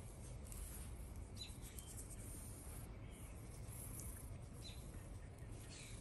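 Quiet room with a steady low hum, soft rustling of a hand stroking a cat's fur, and a few faint short high chirps.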